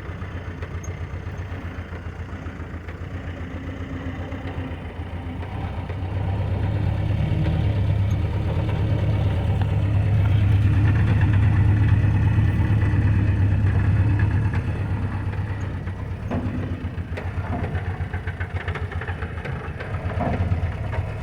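Old Jeep's engine running steadily at low revs, growing louder for several seconds in the middle as it works harder, then easing off again.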